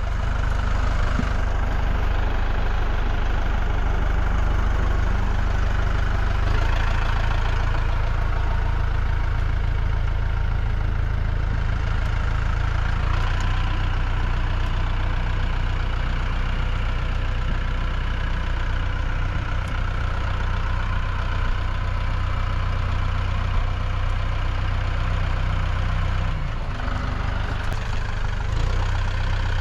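A motor vehicle engine runs steadily, with a short dip in level near the end.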